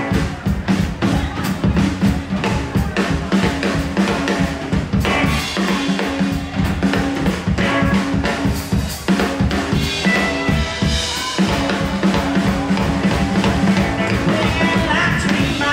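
Live rockabilly band playing an instrumental stretch with no vocals: a drum kit with snare and rimshots driving a steady beat, under upright bass and electric guitar.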